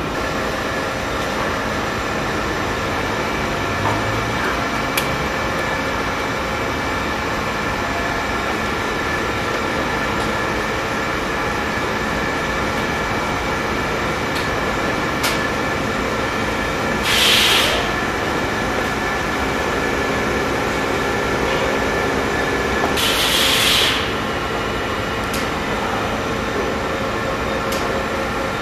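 Rex S80A pipe threading machine running, its motor and gearing turning the pipe while the die head cuts a thread: a steady mechanical hum with a high whine. Two short hissing bursts break in about six seconds apart.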